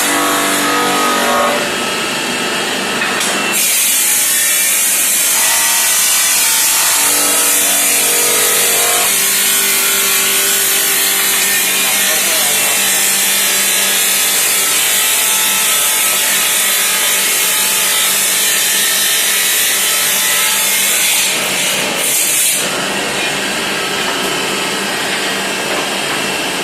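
Automatic tile-cutting machine cutting ceramic tile: a steady, high-pitched grinding noise that grows louder about three seconds in and eases back about 22 seconds in.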